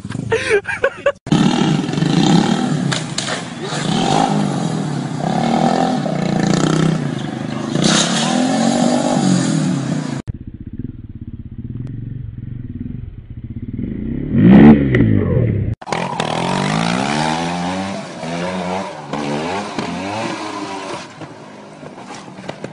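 Off-road motorcycle engines revving up and down across several short clips, each ending in an abrupt cut. The loudest moment is a sharp, brief rev about two-thirds of the way through.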